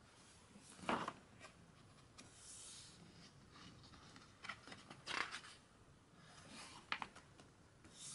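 Pages of a large hardcover photobook being turned by hand: several short papery rustles and flaps, one every second or two.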